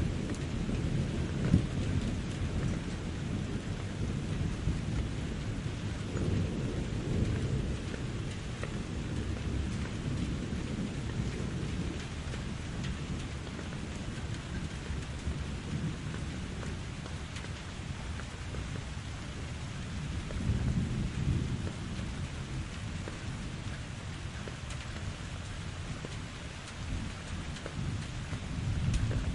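Steady rain falling with low rolling thunder that swells several times, most strongly about 20 seconds in.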